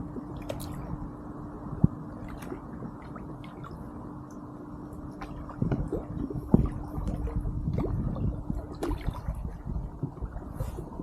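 Kayak paddle dipping and dripping in canal water, with scattered sharp knocks, growing busier and louder about halfway through; a faint steady hum runs underneath.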